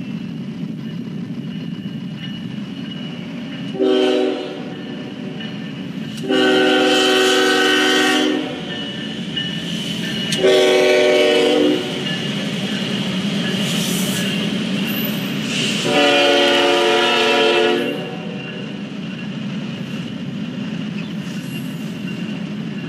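Diesel locomotive air horn sounding four blasts: a short one, a long one, a shorter one, then another long one, over a steady rumble. This is the usual horn warning for a grade crossing.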